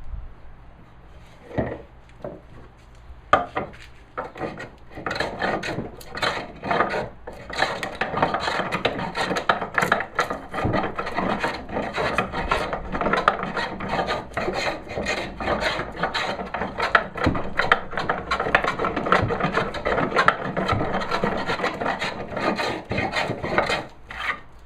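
Stanley No. 40 scrub plane hogging down a rough-sawn walnut board by hand: the blade scrapes and shaves through the wood in rapid repeated strokes. A few separate strokes come first, then steady continuous planing from about three seconds in.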